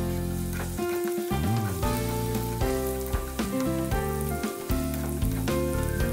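Food sizzling and crackling as it stir-fries in a hot pan, under background music with held notes.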